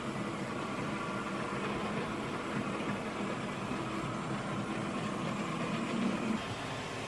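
OO gauge model freight train running past: the Hornby Class 37 locomotive's motor growl with its wagons' wheels rolling along the track, steady, swelling a little just after six seconds and then easing off.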